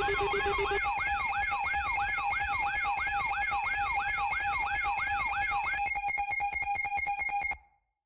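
Layered electronic alarm tones: a siren sweeping up and down about three times a second over steady beeping tones. About six seconds in the sweep stops and a rapid pulsing beep takes over, then everything cuts off abruptly.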